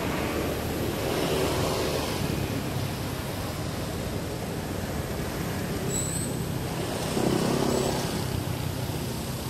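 Steady hiss and rumble of distant road traffic that swells twice as vehicles pass, with a brief high chirp about six seconds in.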